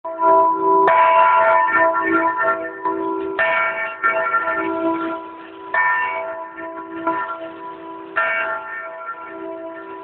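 New 3-foot 9½-inch bell cast by John Taylor & Co., swinging on counterbalanced slow-swinging fittings, its clapper striking four times about two and a half seconds apart. Each stroke rings out as a chord of overtones that dies away slowly and is still humming when the next one lands; the first stroke, about a second in, is the loudest.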